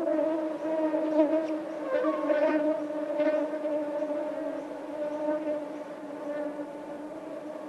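A flying insect's wings buzzing in a steady, slightly wavering hum that fades a little toward the end.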